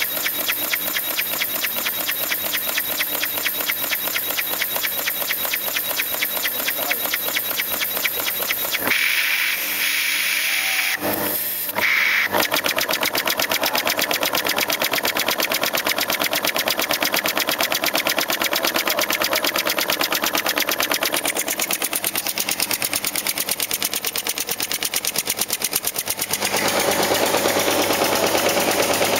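Acrylic single-cylinder compressed-air engine running fast, its rapid exhaust pulses making a dense, even chatter. The chatter briefly breaks off around eleven seconds in.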